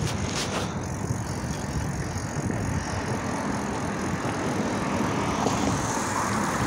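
Steady rush of wind buffeting a phone's microphone while riding a bicycle, with a couple of faint clicks.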